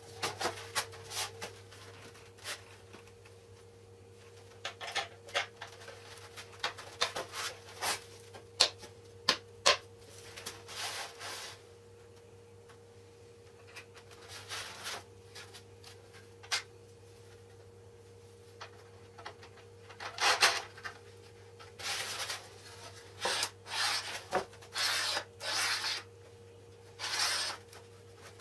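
Laminate and MDF boards and an aluminium rail being handled and slid against each other on a workbench: a string of short, irregular scrapes, rubs and light knocks, in longer bursts of scraping near the end. A steady faint hum runs underneath.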